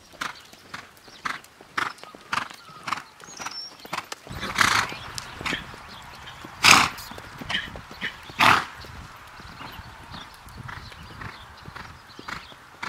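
A Quarter Horse mare loping on arena dirt, her hoofbeats falling in a steady rhythm about twice a second. Three louder, noisier bursts come through the middle.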